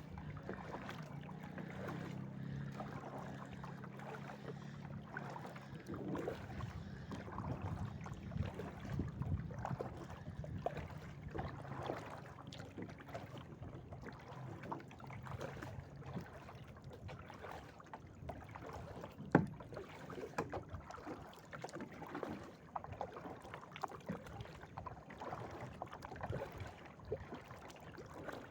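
Kayak paddling: irregular splashes and drips of the paddle blades in the water. A steady low hum runs under it for the first half and fades out, and there is one sharp knock about two-thirds of the way through.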